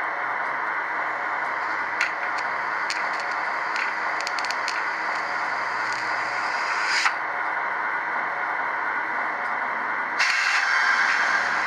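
Model electric locomotive's sound decoder playing a steady hissing running sound through its small speaker while the locomotive stands, with a few sharp clicks between two and five seconds in, a brief louder burst about seven seconds in, and a louder rush from about ten seconds in.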